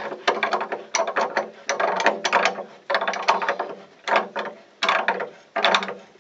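Grips tightening a new sacrificial anode into the top of a steel hot-water cylinder: rapid runs of sharp metallic clicks, coming in bursts with short pauses between strokes.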